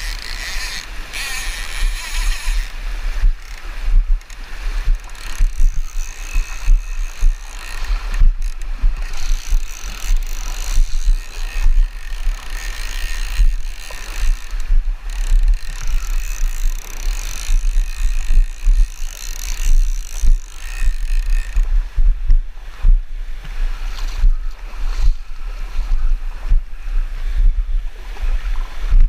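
Wind buffeting the head-mounted action camera's microphone in uneven gusts, over the steady rush of a shallow, fast-flowing river.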